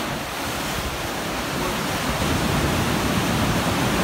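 Ocean surf breaking and washing up over sand and rocks: a steady rushing noise that grows a little louder about two seconds in.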